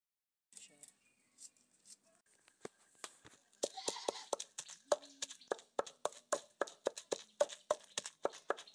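Pestle pounding sliced okra in a mortar, a steady rhythm of about three knocks a second that starts a few seconds in. The okra is being pounded to release its slime for okra soup.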